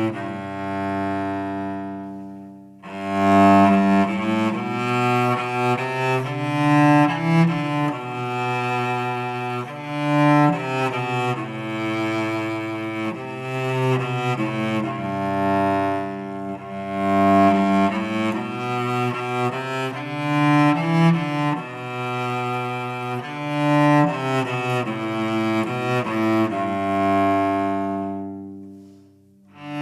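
Solo cello playing a slow melody in long bowed notes. The sound dies away about three seconds in before the next phrase begins, and fades again just before the end, then the playing picks up once more.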